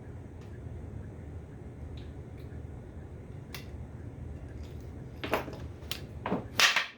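Small metal clicks and short scraping sounds of a hand tool prying staples out of wooden spindles. The scrapes bunch up and get louder in the last couple of seconds. A steady low hum runs underneath and stops near the end.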